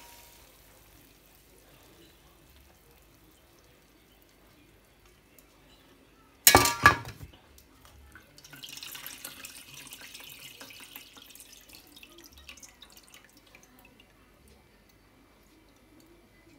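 A metal frying pan clatters down on a glass-ceramic hob about six and a half seconds in, followed by a few seconds of faint crackling hiss from the hot, oily pan.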